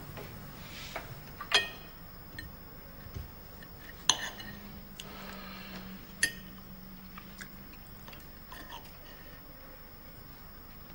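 Cutlery clinking against dinner plates during a quiet meal: three sharper clinks a couple of seconds apart, with softer taps between.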